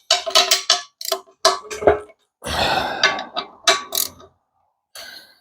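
Metal parts and tools being handled on a work surface: a string of clanks and knocks with a ringing metallic tone, a scraping stretch a little past the middle, and a loud clank at the very end.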